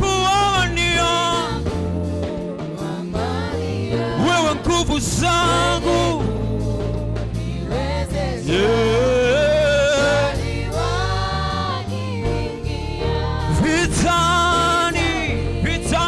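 Gospel singing of a Swahili hymn: voices holding long wavering notes with vibrato over steady low backing notes.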